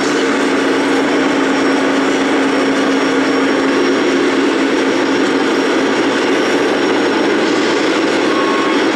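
Steady mechanical din of radio-controlled scale trucks running, with a steady hum through most of it and no break.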